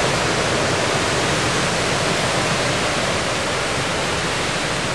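Storm wind and rain rushing through the trees: a steady, really loud rush of noise.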